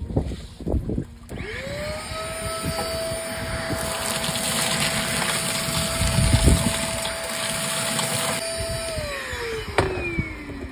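Ash vacuum cleaner switched on about a second in, its motor whine rising to a steady pitch as it sucks ash and debris out of the inside of a kamado grill. The suction is louder in the middle. Near the end it is switched off and the motor winds down with a falling whine.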